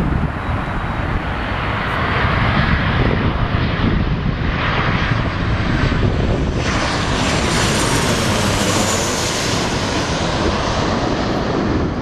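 Boeing 737-800's CFM56 turbofan engines on final approach, a steady jet noise that swells, with a high whine, to its loudest about seven to nine seconds in as the airliner passes overhead, then eases slightly.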